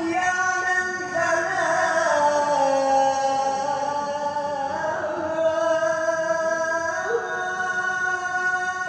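A man's voice chanting in Islamic style with long held notes and slow ornamented glides, with a new phrase starting about seven seconds in.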